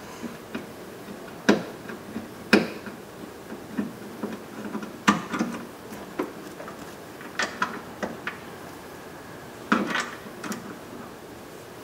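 Irregular clicks and light knocks of a screwdriver and plastic door-trim parts being handled while the inner door handle's Phillips screw is removed.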